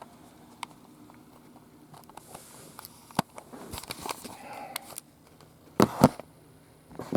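Handling noise: scattered sharp clicks and rustling, with two loud thumps close together about six seconds in.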